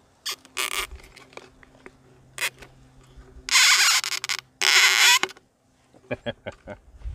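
Plastic water bottle rasping and crinkling against a wooden bottle cutter as a strip of plastic is cut and worked out. There are a few short scratches, then two loud rasps of about a second each a little past the middle, and a run of small ticks near the end.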